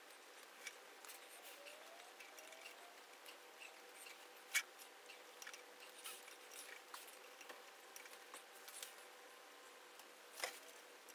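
Faint clicks and light taps of hand tools and parts being handled on a CNC router's aluminium frame and Z-axis stepper motor during assembly, with a sharper click about four and a half seconds in and another near the end.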